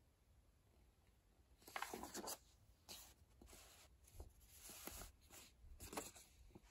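Near silence, with faint paper rustling as a glossy manual's pages are handled and turned: one brief rustle about two seconds in, then soft scattered rustles and small noises.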